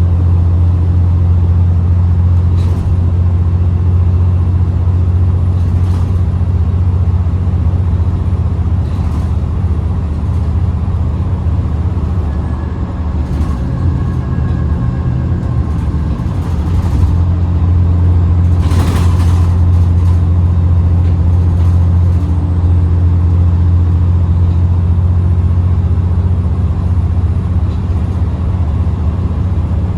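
Diesel engine of an ADL Enviro 400 double-decker bus running steadily under way, with a deep, even hum. Several short bursts of hiss or rattle cut across it every few seconds, the longest and loudest a little past halfway.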